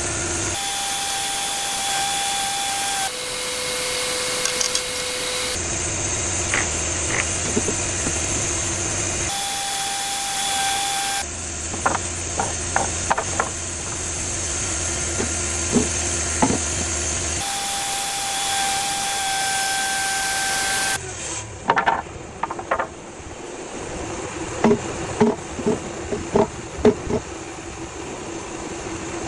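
Band sawmill running and sawing red cedar: a steady hissing saw noise that shifts abruptly several times. From about three-quarters of the way in it drops quieter, with a series of sharp knocks and clunks.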